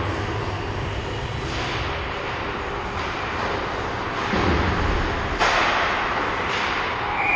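Ice arena ambience during a hockey game: a steady low rumble with several brief swells of hiss, the loudest about five and a half seconds in.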